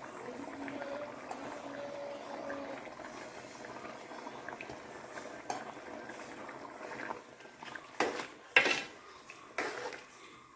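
Chicken curry simmering in a metal pot, a steady bubbling with small pops. From about eight seconds in, a metal ladle stirring the curry clinks and scrapes against the pot a few times.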